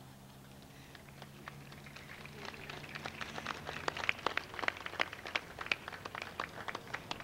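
Audience applauding: scattered hand claps that build up about a second in and thin out near the end.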